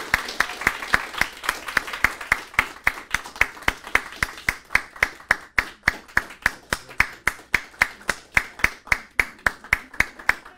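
Hands clapping in a steady, even rhythm of about four to five claps a second.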